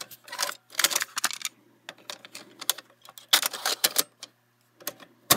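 Plastic clicks and rattles of a cassette being pulled out of and pushed back into a 1970s Chrysler in-dash cassette player-recorder, in several short clusters. Music starts playing from it right at the end.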